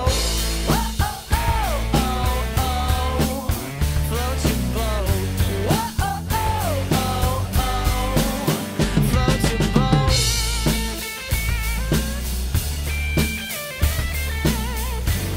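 Acoustic drum kit played along to a recorded song: a steady beat of bass drum, snare and cymbals over the song's singing and band.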